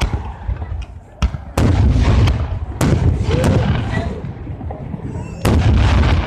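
Aerial fireworks shells bursting: a few sharp cracks in the first second and a half, then three heavy booms, each followed by a low rolling rumble.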